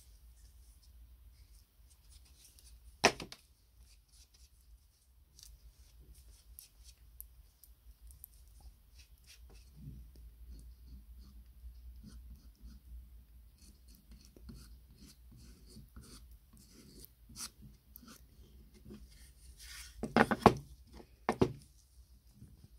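Small hand tool scraping and rubbing across the old wooden base of a hole punch. There is one sharp click about three seconds in, and a few louder knocks near the end.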